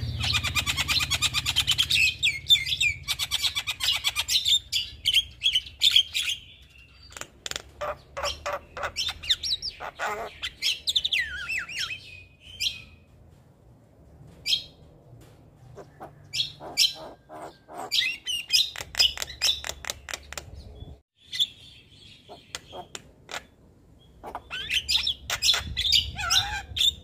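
Javan myna singing: long runs of fast chattering, clicks and squawky notes, breaking off into quieter gaps midway and starting up in a fresh dense burst near the end.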